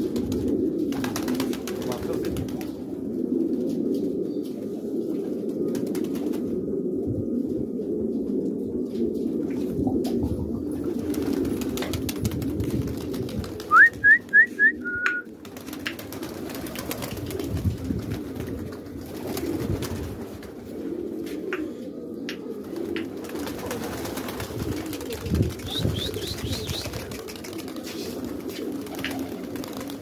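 A flock of domestic pigeons cooing steadily, many voices at once. About fourteen seconds in, a quick run of four loud, high rising chirps cuts through, and a fainter run of high chirps comes near the end.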